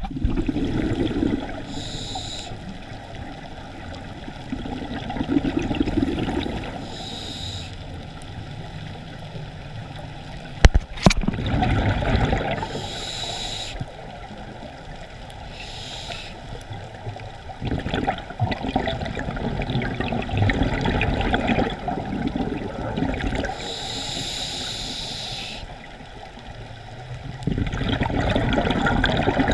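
Scuba breathing through a regulator underwater, a breath every few seconds: a short hiss on each inhale, then a gurgling rush of exhaled bubbles. One sharp knock about eleven seconds in.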